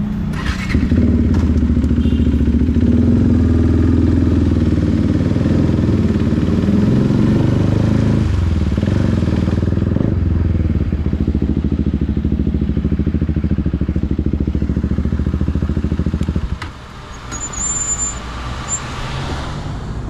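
KTM RC 390's single-cylinder engine through an Akrapovic exhaust, running hard under throttle at a fairly steady pitch, with brief breaks about eight and ten seconds in. Near the end it suddenly gets much quieter.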